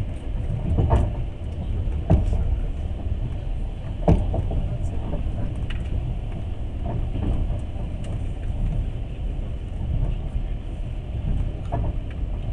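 Passenger train running, heard from inside the carriage: a steady low rumble with occasional sharp knocks at irregular intervals.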